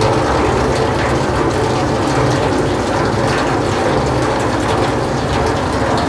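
Water pump and plumbing running with a steady mechanical hum and a rush of water as a stainless steel water tank refills.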